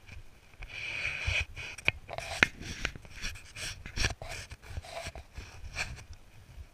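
A person breathing hard close to the microphone: short, irregular breaths with a few sharp knocks among them.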